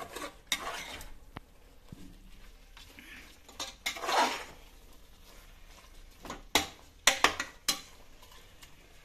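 Metal ladle stirring a thick chicken masala in an aluminium pressure cooker, scraping and clinking against the pot, with a longer scrape about halfway and a quick run of sharp knocks near the end.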